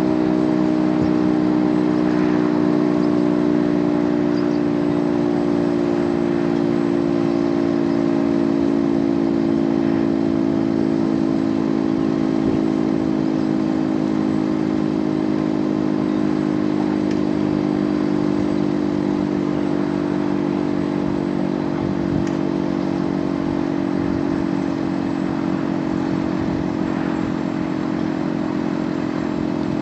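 Federal Signal Thunderbeam outdoor warning siren sounding a steady tone during a siren test, its pitch sagging slowly and its level easing off a little.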